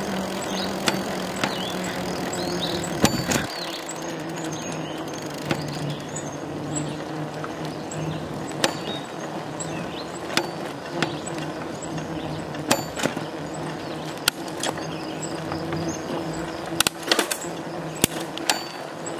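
Genesis 26-inch bicycle rolling along: a steady hum that drops in pitch a few seconds in, with scattered clicks and rattles, several close together near the end.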